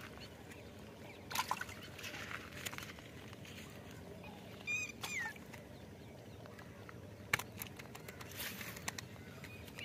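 Fish flapping and splashing at the surface of shallow water, a few sharp irregular splashes. About five seconds in comes a short, high, wavering call.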